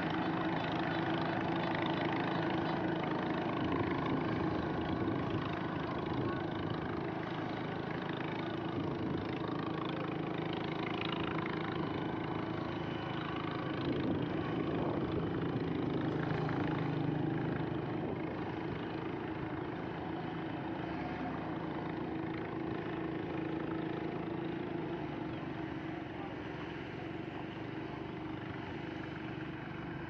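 Kubota DC105X combine harvester's diesel engine running steadily at a distance, growing a little quieter in the second half.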